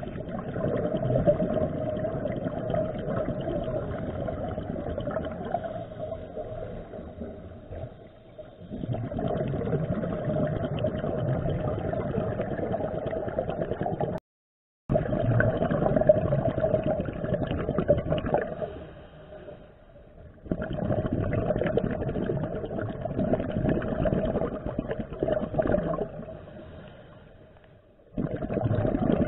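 Underwater sound of a scuba diver breathing through a regulator: long rushes of exhaled bubbles lasting several seconds, separated by short quieter pauses for inhaling. The sound cuts out completely for a moment about halfway through.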